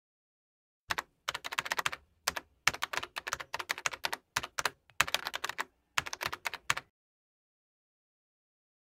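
Computer keyboard typing: a quick, uneven run of key clicks starting about a second in and stopping about two seconds before the end.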